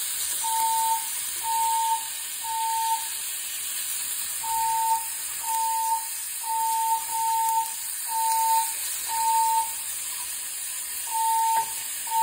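Building fire alarm sounding its evacuation tone: short beeps of one pitch, mostly in groups of three, with a pause between groups. Under it, sausage sizzles steadily in a frying pan.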